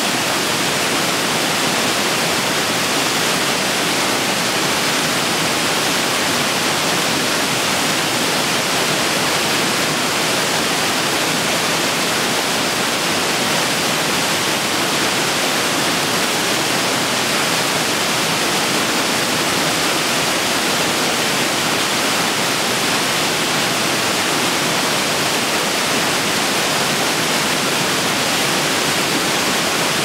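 Waterfall: a loud, steady rush of falling water that never changes, more hiss than deep rumble.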